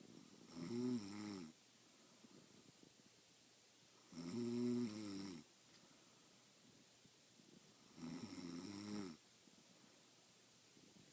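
A woman snoring in her sleep: three pitched snores about a second long each, one every three and a half to four seconds.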